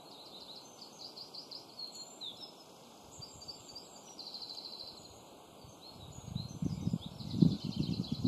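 Songbirds singing, with chirps and rapid trills. About two thirds of the way in, gusts of wind start buffeting the microphone.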